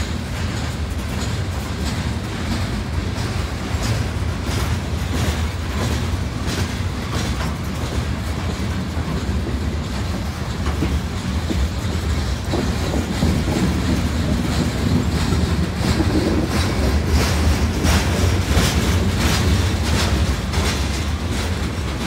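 Loaded stone hopper cars of a freight train rolling past: a steady low rumble with wheels clicking over the rail joints, growing a little louder with denser clicking in the last few seconds.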